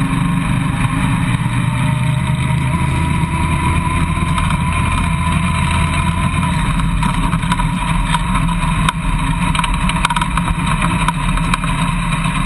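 Off-road vehicle engine running steadily at low speed under the onboard camera, its low note shifting a little past the middle. Scattered clicks and crackles in the second half as the tyres roll onto gravel.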